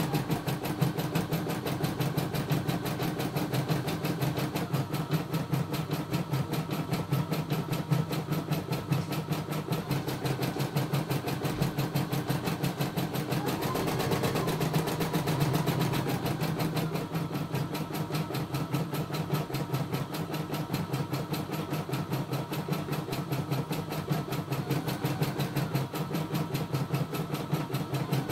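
CNY E960 computerized embroidery machine stitching a design: a rapid, steady stitching rhythm over the motor's hum, with a whine that shifts up and down in pitch now and then.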